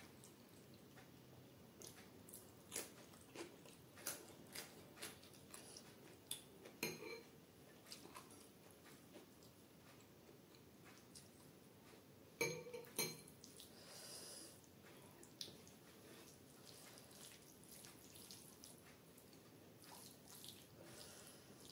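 Faint, scattered soft wet clicks and squishes of fingers mixing rice with chana dal on a wooden plate, with two sharper clicks a little past the middle.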